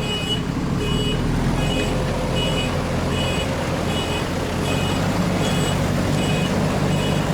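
A vehicle's reversing alarm beeping steadily, about one beep every three-quarters of a second, over the low, steady running of a heavy engine: the machine clearing the rockfall from the road is backing up.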